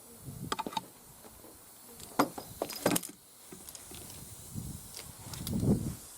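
Scattered metallic clicks and knocks from handling an airline and tyre-inflator fittings, with two sharp clicks about two and three seconds in and a low rumbling shuffle near the end.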